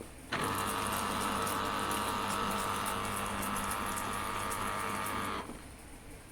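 Electric citrus juicer motor running with a steady hum as fruit is pressed on it. It cuts out for a moment at the start, starts again, and stops about five and a half seconds in.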